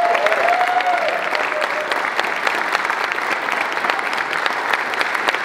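Crowd of guests clapping steadily, with a voice or two cheering in the first couple of seconds.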